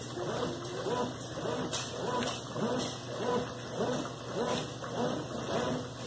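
Consul Maré CWL10 top-loading washing machine agitating in its wash cycle, churning soapy water. The agitator drive whines up and down with each stroke, about two strokes a second in an even rhythm.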